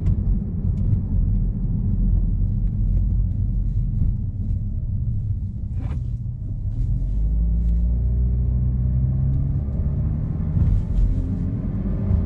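Exhaust of a Chevrolet Malibu's 2.0-litre turbocharged four-cylinder, with a Borla axle-back exhaust and the resonator deleted, giving a deep rumble while driving. About halfway through it settles into a steady drone that rises gently in pitch.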